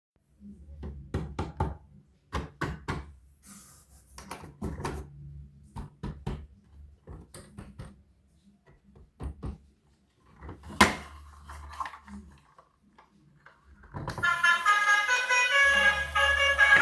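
Irregular knocks and clicks over a low hum, the sharpest about eleven seconds in, then music with a bright melody starts near the end.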